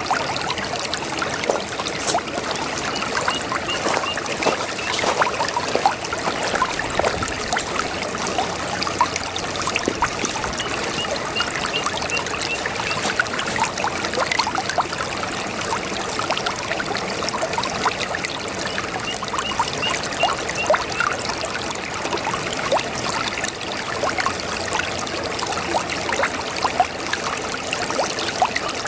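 Small brook babbling and trickling over stones, a steady busy water sound. Faint high chirps recur every several seconds in the background.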